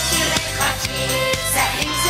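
Music with a steady beat: an instrumental passage of a French song, between sung lines.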